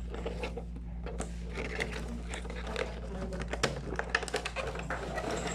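Packaging being handled during an unboxing: scattered light clicks and crinkling of plastic and cardboard, over a steady low hum.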